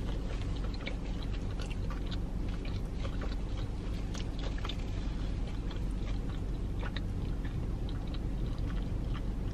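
Close-miked chewing of a Flamin' Hot Cheetos–coated Korean fried cheese dog: many small, crisp crunches and mouth clicks, over a steady low hum.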